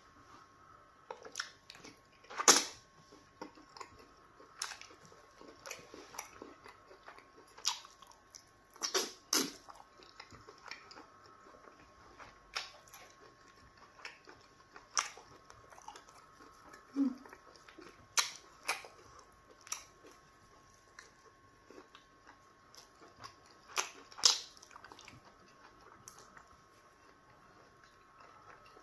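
Close-miked eating sounds of a person chewing pounded yam fufu dipped in okra stew: irregular wet smacks and mouth clicks, a few of them sharper and louder, notably about two and a half seconds in and again around twenty-four seconds.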